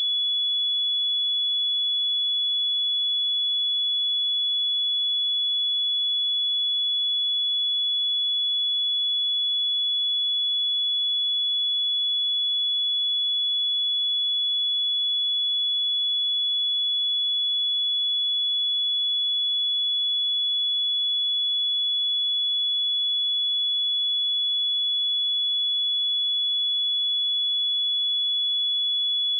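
Pure 3404 Hz sine-wave test tone, one steady high-pitched note held without change.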